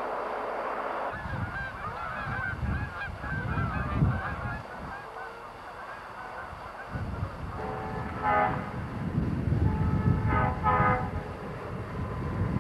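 A flock of geese honking as they fly over, followed by a distant diesel locomotive horn sounding a few short blasts over a low rumble as a train approaches.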